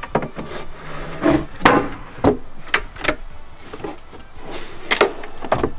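A wooden drawer is pushed shut on metal locking slides, with a loose plywood top set down on it: a string of sharp wooden knocks and clicks over a low rubbing slide.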